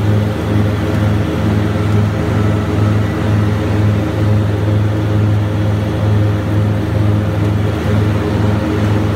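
Grasshopper 325D out-front mower's three-cylinder Kubota diesel engine running steadily as the mower drives along, a low drone with a slow, regular swell in loudness.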